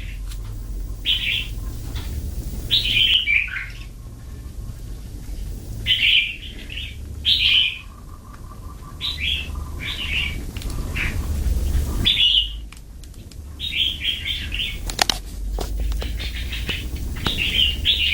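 Hill myna giving about a dozen short, harsh calls, one to two seconds apart.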